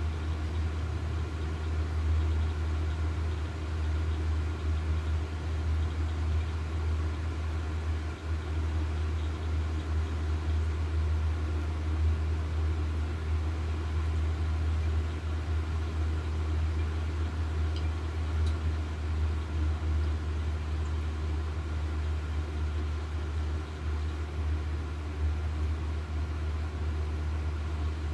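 Steady low mechanical hum with a faint higher whine, unchanging throughout.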